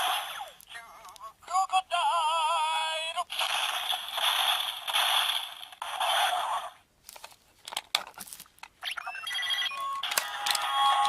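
Zyuoh Changer Final transformation toy playing electronic sound effects through its small, tinny speaker: a warbling tone, then a long noisy burst. Several sharp clicks follow, then more electronic tones and a voice-like jingle near the end.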